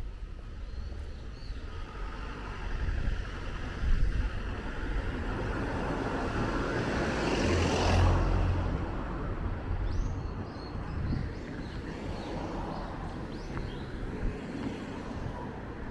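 Street ambience: a passing car's tyre and engine noise swells to a peak about halfway through, then fades, over a steady low wind rumble on the microphone.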